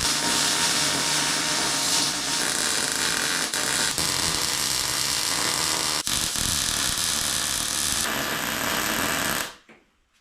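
Electric welding arc crackling and buzzing steadily while tack-welding steel, with a couple of brief breaks, then stopping suddenly about nine and a half seconds in.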